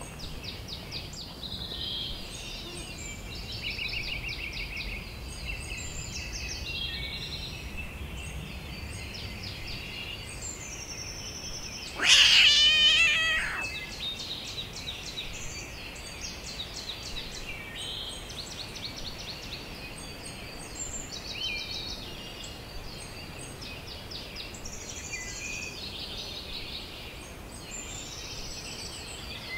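A domestic cat gives one loud, drawn-out meow, about a second and a half long, roughly halfway through. Songbirds chirp and trill throughout.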